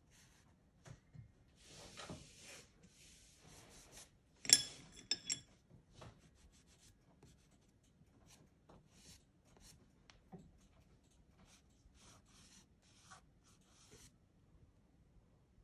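Soft pastel stick scratching and rubbing across pastel paper in short, uneven strokes. About four and a half seconds in there is a sharp, ringing clink, the loudest sound, followed by a couple of smaller clicks.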